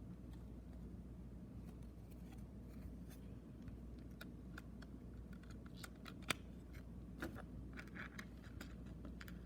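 Faint small clicks, taps and scratching from hands working on an opened cassette tape's plastic shell, hub and leader tape, with one sharp click about six seconds in and a smaller one a second later, over a steady low hum.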